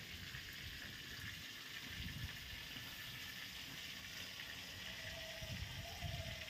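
Faint steady background hiss with irregular low rumbling, and a faint thin tone near the end.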